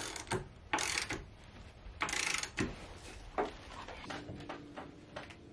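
A cordless drill run in short bursts, with clicks and knocks of tool handling in between; the two longest bursts come about one and two seconds in.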